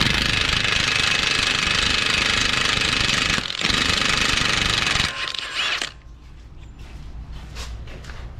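Cordless Milwaukee impact wrench hammering on the CV axle nut: one run of about three and a half seconds, a brief pause, then another of about a second and a half, then it winds down. The nut is hard to get off because its edge has been knocked out of shape.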